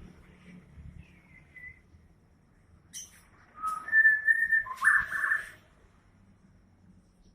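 White-rumped shama (murai batu) singing: a faint whistled note, a sharp short call about three seconds in, then a loud run of clear whistles mixed with rougher notes lasting about two seconds.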